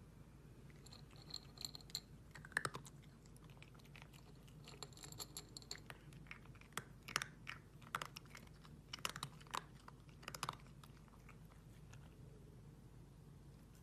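A cat eating dry kibble: irregular, crisp crunches in clusters, thinning out in the last few seconds.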